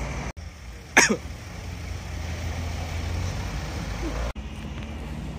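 Car engines running with a steady low rumble, dropping out suddenly twice. About a second in comes a short, loud sound that falls steeply in pitch.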